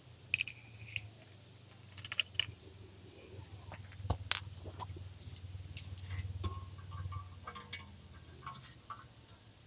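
Light metallic clinks and taps of camp cookware and utensils being handled, scattered irregularly, some with a short ring, over a steady low hum.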